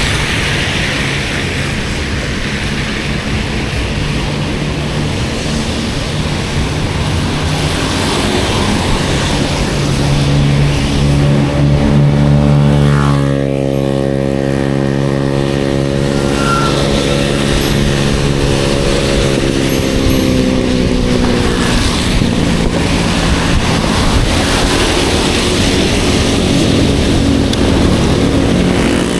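Steady wind and road rush from riding a bicycle in the rain, with a motor vehicle's engine passing close by about halfway through, its pitch dropping sharply as it goes past.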